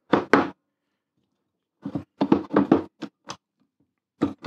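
Steel and cast-iron parts of a Record No. 52 vice knocking and clicking as its quick-release mechanism is worked into place: short, sharp knocks in irregular groups, two at the start, a quick run of about eight in the middle and more near the end.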